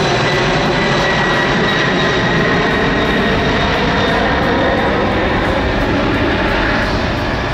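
McDonnell Douglas DC-10/MD-11-type trijet taking off on full thrust: a steady jet roar with a high engine whine over it, easing slightly near the end as the aircraft climbs away.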